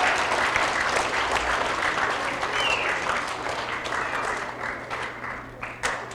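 Audience of students applauding, the clapping thinning and fading over the last couple of seconds down to a few scattered claps.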